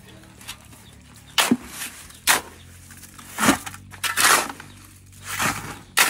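A steel shovel scraping and scooping through a heap of gravel and cement mix: five or six gritty strokes, roughly a second apart.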